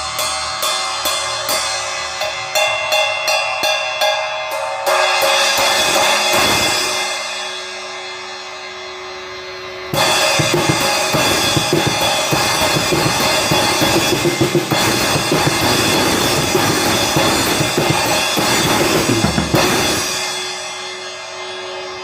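Armada Achilles AXL cymbals played on a drum kit. For the first few seconds a cymbal is struck in a steady pattern, about three strokes a second. About ten seconds in, the playing turns loud, with crashing cymbal wash over the drums, and near the end it stops and the cymbals ring out.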